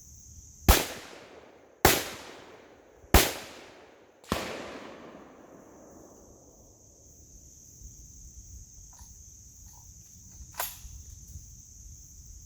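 Gunshots: four loud shots a little over a second apart, each trailing off, then a softer crack and a few faint clicks, and another loud shot at the very end. A steady high-pitched insect drone runs underneath.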